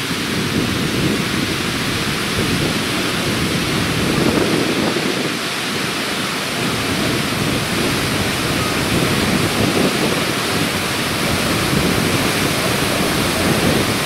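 Ouzoud waterfall plunging into its pool: a loud, steady rush of falling water.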